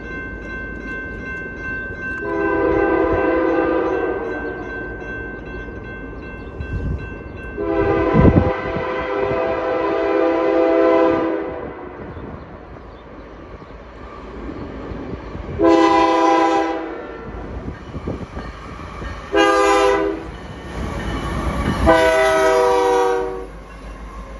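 A Canadian Pacific GE AC44CW locomotive's air horn sounding five blasts: two long, two short, then a slightly longer one, the warning for a grade crossing. The rumble of the approaching train grows louder near the end.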